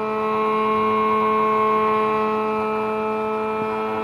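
Electric motor of a homemade table saw running steadily at speed with no cut being made: a steady, even whine.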